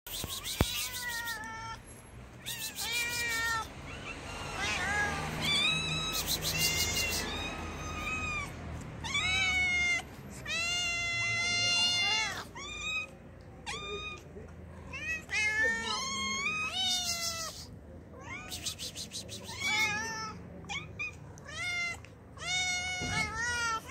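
Several hungry cats meowing for food over and over, their calls rising and falling in pitch and sometimes overlapping.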